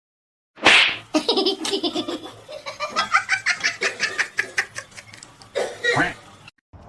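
A person laughing in rapid repeated bursts, starting with a loud outburst about half a second in and cutting off abruptly near the end.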